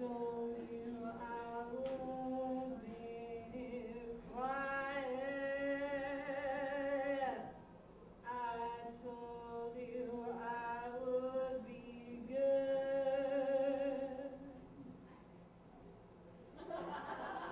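A woman singing solo into a microphone with no instruments heard, in phrases of held notes, one long note with vibrato held for about three seconds near the middle. The singing falls quieter near the end.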